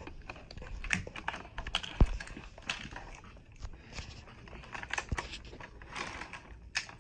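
Crinkling plastic wrapping and small plastic clicks and taps as a Hatchimals toy egg is unwrapped and handled, with a couple of sharper knocks about two and five seconds in.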